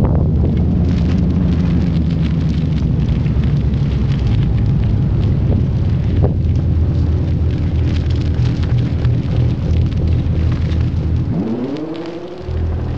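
Bass guitar played through a DOD delay pedal: low sustained notes with a few sharp plucked attacks, and a rising slide in pitch near the end.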